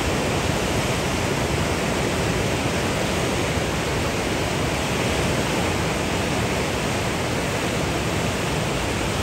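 Fast, silt-laden Shyok River rapids rushing in a steady, loud wash of water noise, without a break or change.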